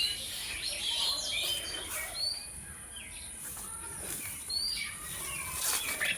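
Birds chirping, many short rising and falling notes, over a steady high hiss, with a short sharp noise near the end.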